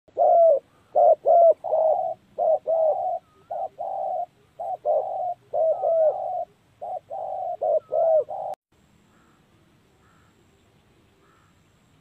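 Spotted doves cooing: a fast run of repeated coos, many ending in a sharp upward hook, that cuts off abruptly at about eight and a half seconds. After that only a few faint chirps of small birds remain.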